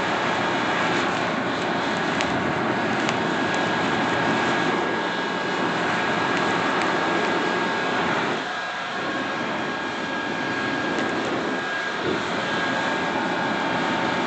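Leaf blower running steadily, blasting air into burning charcoal in a small grill to make the coals burn hotter. A thin steady whine sits over the rush of air, which dips briefly about two-thirds of the way in and again a few seconds later.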